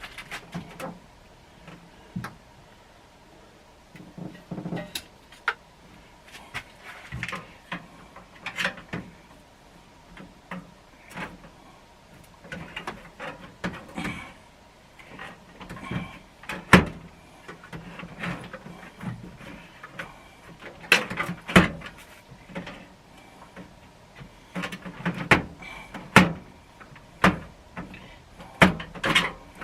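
Metal tools and a steel tool box being handled: irregular clinks and knocks, some of them loud, with drawer-like sliding and short pauses between.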